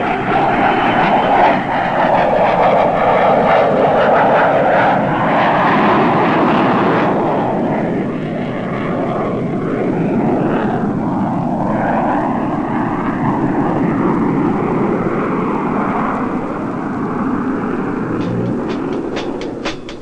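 Twin J79 jet engines of an F-4 Phantom running at high power: a loud, steady rushing roar whose pitch slowly swells and falls. It turns softer and duller about seven seconds in.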